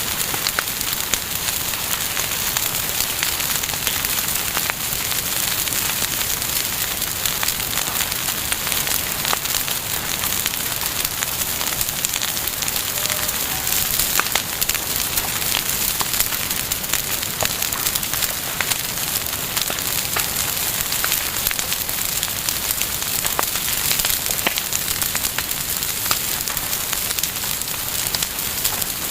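Campfire burning: a steady hiss of flames with frequent irregular crackles and pops of burning wood.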